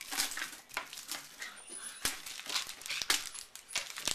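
Plastic candy wrappers crinkling and rustling in short irregular bursts as wrapped candies are handled and put away.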